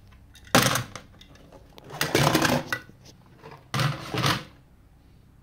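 Die-cast metal toy cars clattering and scraping against a clear plastic bowl, in three short bursts about half a second in, around two seconds and around four seconds.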